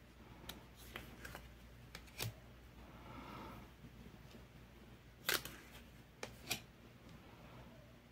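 Lenormand cards being taken one at a time off the top of a deck and set aside: soft slides and light clicks of card stock, with two sharper snaps a little past five and six seconds in.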